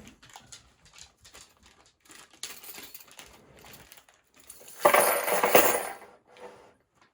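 Small metal construction-set plates and brackets clinking and rattling as they are handled and lifted out of their packaging, with a louder clatter about five seconds in.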